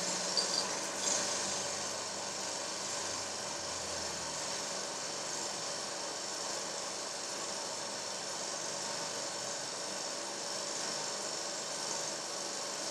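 A steady hum with hiss, with a few faint clicks about half a second to a second in.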